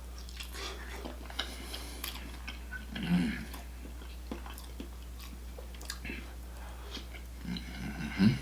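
Close-miked chewing and mouth sounds of a person eating seafood boil in Cajun butter sauce: scattered wet clicks and smacks, with a louder low sound about three seconds in and again near the end.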